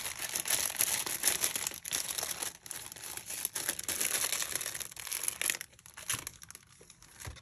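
Thin clear plastic packets crinkling and crackling as they are handled and opened. The crinkling is dense for about five seconds, then thins to a few faint crackles.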